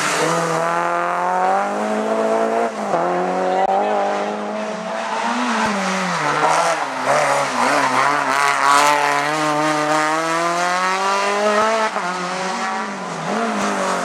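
Renault Clio hillclimb race cars taking a bend one after another. Each four-cylinder engine revs hard, rising in pitch as it accelerates and dropping at each gear change.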